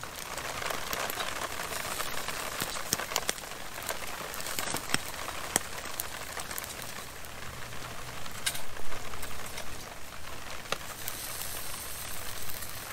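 Italian sausages sizzling on a grate in the direct flame of a small Solo Stove Lite wood fire: a steady hiss broken by irregular sharp pops and crackles.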